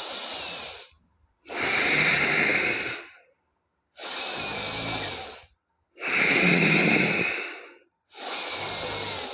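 A man breathing forcefully in and out through the nose as a pranayama nostril-clearing exercise. He takes five long, hissing breaths of about a second and a half each, with short pauses between them, alternating louder and softer.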